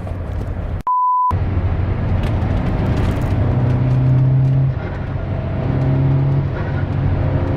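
Audi A4 2.0T's turbocharged four-cylinder engine and road noise heard from inside the car while driving, a steady low drone with engine tones that swell in two stretches. About a second in, the sound drops out for half a second under a short pure beep.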